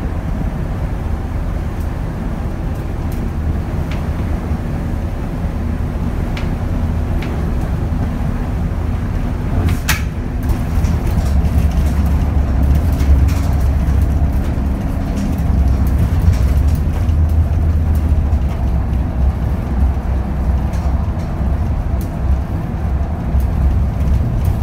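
A 2010 Scania K280 city bus under way, heard from inside the cabin: a steady low diesel engine and road rumble that gets louder in the second half. A single sharp click or rattle sounds about ten seconds in.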